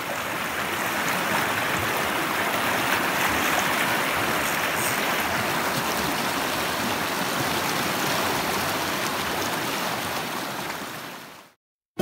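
Mountain stream rushing over rocks: a steady rush of whitewater that fades in at the start and fades out near the end.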